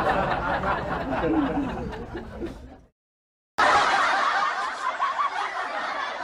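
Recorded laughter sound effects. One laugh fades out just before the middle, then after about a second of dead silence a second laugh clip starts abruptly, with less bass than the first.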